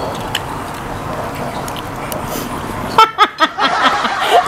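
Steady background noise, then people laughing hard from about three seconds in, in quick repeated pulses.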